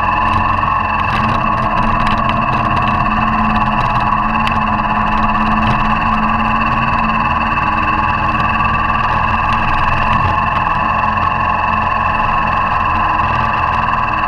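Motorcycle engine running at a steady, unchanging speed while the bike rides a gravel track, heard from a camera mounted low on the front of the bike.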